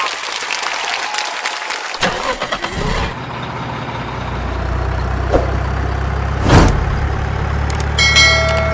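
A large engine starts up about three seconds in and then runs steadily with a low hum, with two sharp knocks in the middle and a bright chime near the end.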